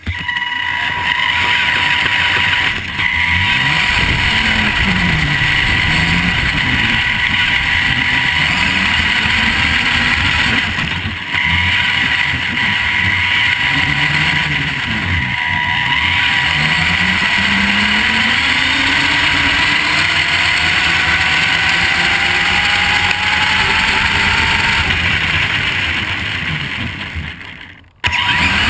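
Vaterra Twin Hammers RC rock racer's electric motor and drivetrain whining as it drives, the pitch rising and falling over and over with the throttle, over a steady high whine. Under it runs the hiss and crunch of the tyres on gravel.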